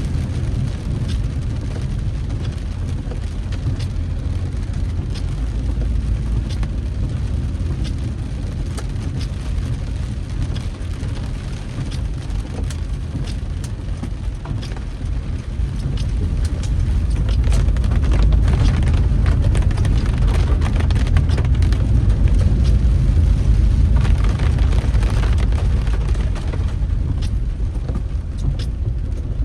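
Street noise in rain on a flooded road: a steady low rumble with a scatter of sharp ticks, swelling louder from about 17 to 27 seconds in.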